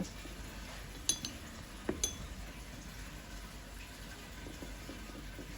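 A few light clinks, a pair about a second in and another near two seconds, each with a brief ringing tone. They come from a paintbrush tapped against a hard mixing dish or water jar while watercolours are mixed, followed by faint room tone.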